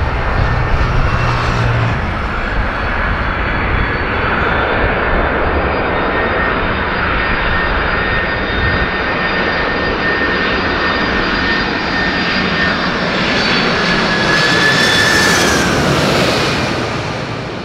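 Boeing 747-400F freighter's four jet engines on landing approach: a steady roar with a high whine, growing loudest as it passes low overhead near the end, where the whine drops in pitch.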